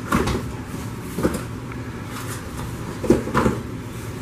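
Rustling and knocking of packing material and packaging as hands dig through a cardboard shipping box and lift out a packaged knife: a short burst right at the start, another about a second in, and two close together just past three seconds.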